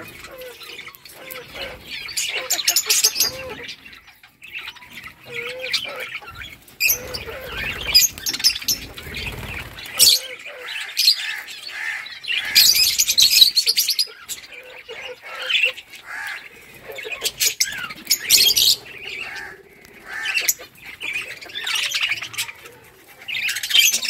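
A flock of budgerigars chattering: a continuous run of quick chirps, warbles and squawks, with louder spells.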